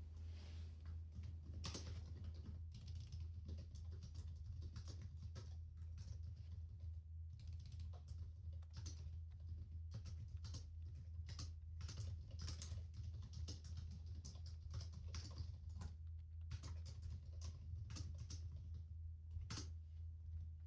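Typing on a computer keyboard: quick, uneven runs of key clicks with brief pauses, over a steady low hum.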